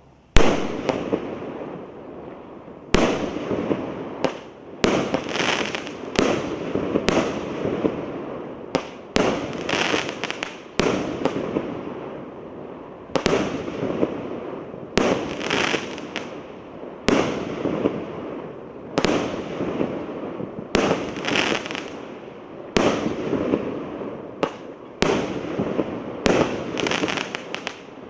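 A 1-inch, 19-shot fireworks cake firing shot after shot, a sharp bang roughly every one to two seconds, each followed by the noisy rush of its aerial break.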